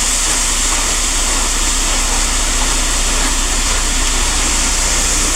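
Concrete mixer truck's diesel engine running steadily, with a strong, even hiss over a low hum.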